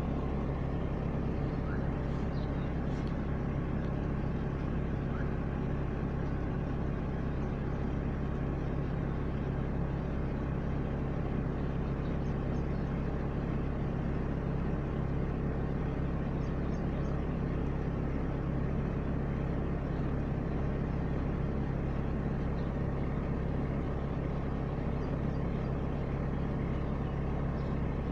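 Heavy monsoon rain falling steadily: a dense, even hiss with a strong steady low rumble beneath it.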